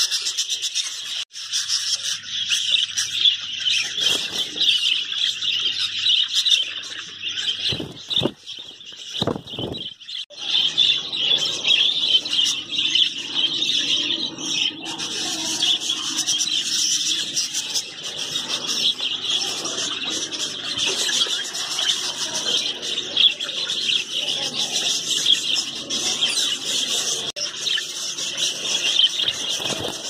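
Many budgerigars chirping and chattering together in a dense, unbroken high-pitched chorus.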